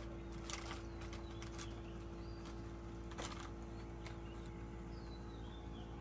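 Quiet ambience: a steady low hum with one constant tone, a few faint clicks in the first half, and several short high chirps scattered through.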